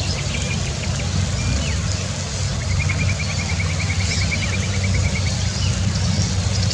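Steady low rumble of background noise. A rapid high trill of about eight ticks a second runs from about two and a half to five seconds in, with a few faint short chirps near the start.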